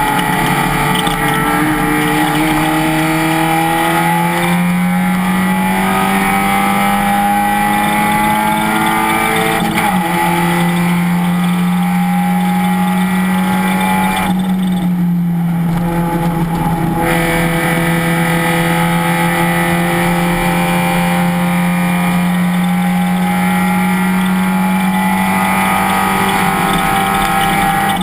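Race car engine running hard under throttle, its pitch climbing slowly, with a sharp drop about ten seconds in like an upshift. About halfway through it lifts briefly and its top end goes thinner for a couple of seconds, then it pulls steadily again until another drop at the end.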